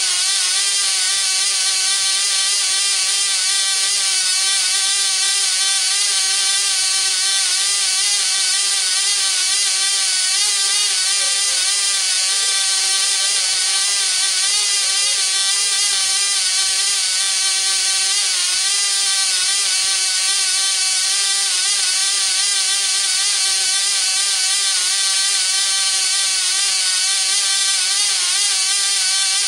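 Cox .010 Tee Dee two-stroke glow model engine running at full speed, about 27,500 rpm, with its tiny propeller: a steady, high-pitched whine that wavers slightly in pitch.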